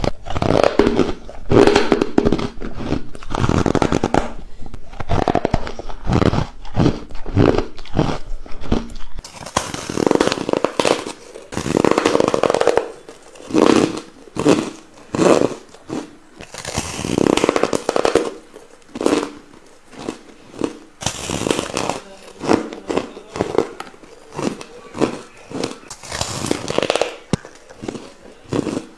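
Close-miked biting and chewing of frozen ice dusted with matcha powder: a dense run of crunches in an uneven chewing rhythm, picked up by a lapel microphone. The crunching changes in tone about nine seconds in.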